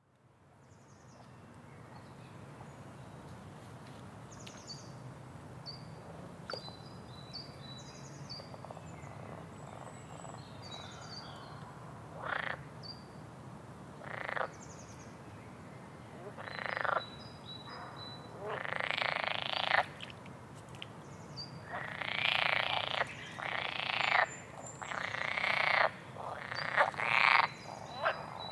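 A songbird singing: short high chirps throughout. From about twelve seconds in come louder buzzy, rattling phrases lasting about a second each, coming closer together near the end.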